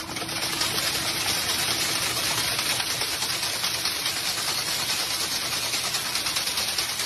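A machine running steadily with a fast, even rattle over a hiss.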